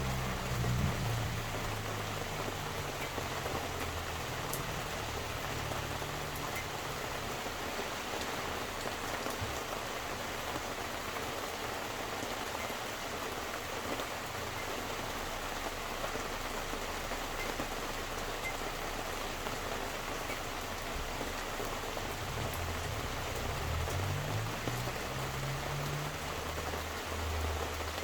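Steady rain falling. A low hum is heard at the start and swells again for a few seconds near the end.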